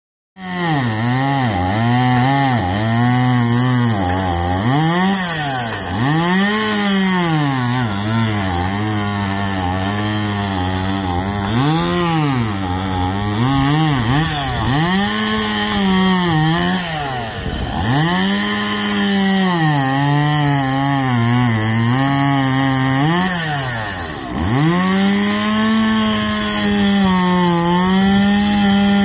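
Small two-stroke chainsaw cutting into an upright log, its engine pitch swinging up and down over and over as the throttle is worked, and falling away toward idle a few times before revving up again.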